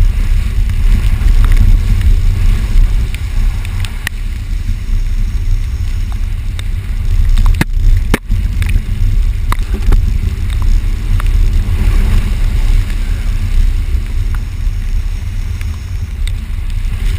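Vehicle driving a rough, wet off-road trail: a steady low rumble with scattered clicks and knocks, two sharp knocks about eight seconds in.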